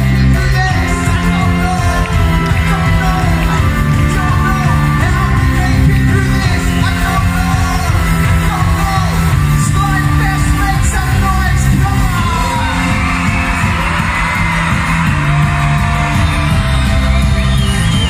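Live pop-rock band playing loudly, with sung lead vocals over keyboard, electric guitars and drums, heard through a phone microphone in a large hall. A crowd yells along, and from about twelve seconds in their screaming rises over the music for a few seconds.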